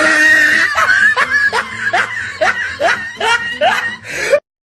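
A person laughing in a long run of short rising bursts, a bit over two a second, which cuts off abruptly near the end.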